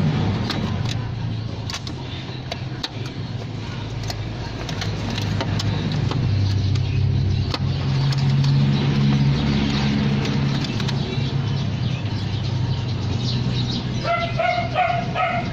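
A vehicle engine running with a steady low drone that grows louder in the middle, over scattered clicks and taps of handling. Near the end, a dog gives a quick run of high yips.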